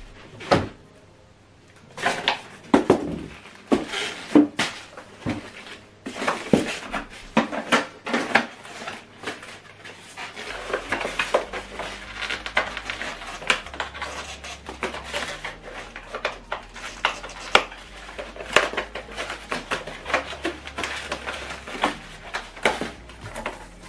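Unpacking noises: polystyrene foam packing blocks squeaking and creaking as they are handled, and a plastic strap being worked off them, with irregular knocks, scrapes and plastic-wrap rustles.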